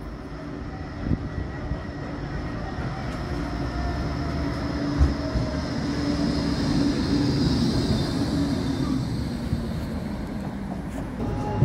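Bombardier Flexity 2 tram pulling into a street stop and braking to a halt. It grows louder as it draws alongside, and a high electric whine from its drive slides down in pitch as it slows.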